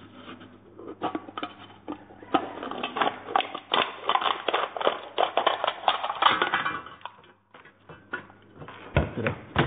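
Scissors cutting through a thin aluminium drink can: a dense run of crackling, crinkling snips for several seconds, then a single knock near the end.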